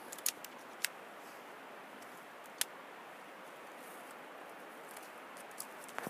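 Faint steady outdoor hiss, broken by a few short, sharp clicks about a second or two apart.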